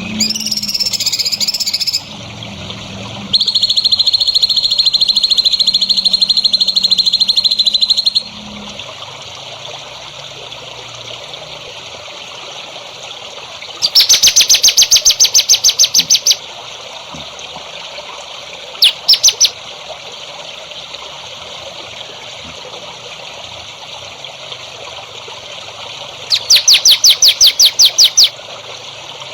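Recorded songbird calls: a gliding call, then a long steady buzzing trill lasting about five seconds, then loud runs of fast, sharp, repeated high notes, twice, with a short burst between them, over a steady background hiss.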